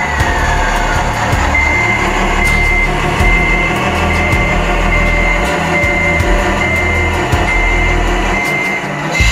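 Reversing beeper of a radio-controlled truck or construction machine, sounding evenly about one and a half times a second from a second or so in, over the steady low running of its engine sound. At the start a motor whine falls away.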